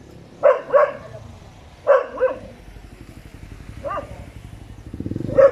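A dog barking: two quick pairs of barks, then two single barks. A vehicle engine's low rumble comes up near the end.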